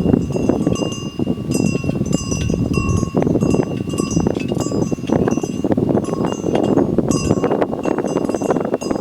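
Metal bells worn by grazing water buffalo clanking irregularly, many rings overlapping as the animals move, over a steady, dense background noise.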